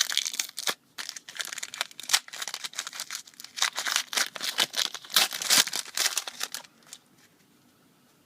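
A trading-card pack wrapper being torn open and crinkled, with cards handled, giving a dense run of crackling rustles that stops about seven seconds in.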